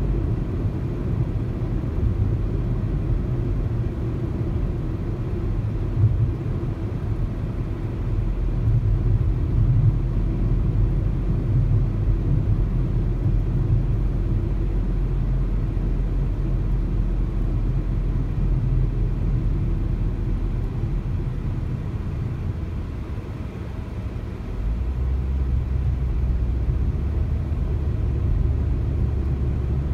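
A car driving, its road and engine noise a steady low rumble, with a brief thump about six seconds in.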